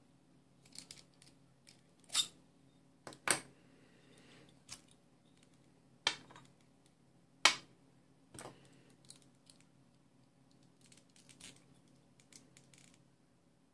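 Metal sections of a sonic screwdriver replica clicking and clinking as they are handled, unscrewed and set down on a glass tabletop: scattered sharp clicks, the loudest about seven and a half seconds in.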